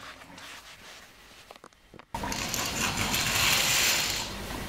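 Faint shuffling, then about two seconds in a sudden sliding, rattling rush of noise lasting about two seconds: curtains being drawn open along their rail.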